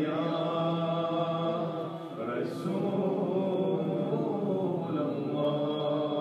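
Devotional vocal chanting of a naat, sung without instruments: long held notes gliding slowly up and down in a drawn-out melody.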